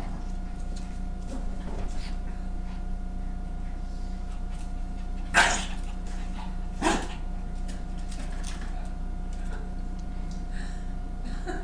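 Shih Tzu barking twice, about a second and a half apart.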